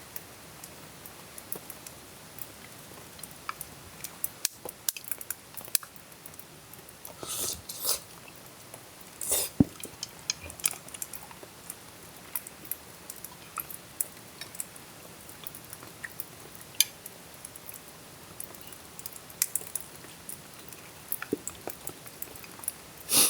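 A person eating: chewing and biting, with scattered small clicks and a few louder crunchy bites about a third of the way in.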